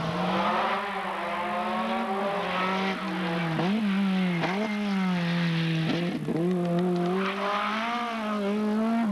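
Rally car engine held at high revs on a tarmac stage, its pitch dropping briefly and climbing straight back several times.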